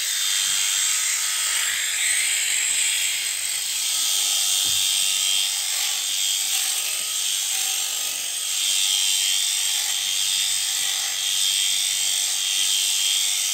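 Corded electric sheep shears running with a steady high whir as they cut through a ram lamb's fleece.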